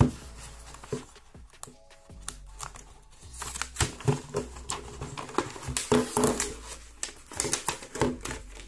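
Product packaging being handled during an unboxing: a sharp knock at the start, then a run of irregular clicks, taps and rustles of box and wrapping, busiest in the second half.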